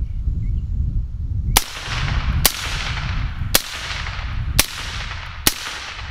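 Five suppressed shots from a 7.62x39 AR-pattern rifle fired semi-automatically, roughly one a second. Each is a sharp crack with a short fading echo.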